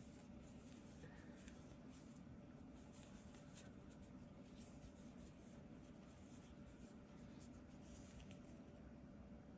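Near silence: faint scratching and rustling of yarn drawn over a metal crochet hook as single crochet stitches are worked, over a low steady room hum.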